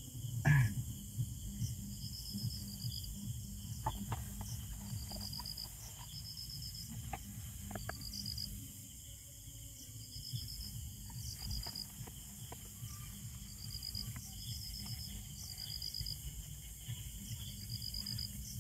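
Crickets chirping in short pulsed trills, repeating about every second. Faint scattered clicks, with a soft knock about half a second in.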